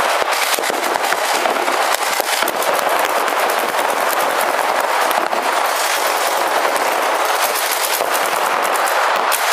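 Paintball markers firing rapidly and without pause, a dense stream of sharp shots.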